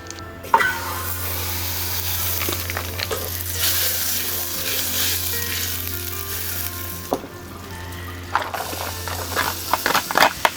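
Food dropped into a hot, oiled pan and sizzling hard, then several clicks and scrapes of a utensil stirring it in the pan near the end.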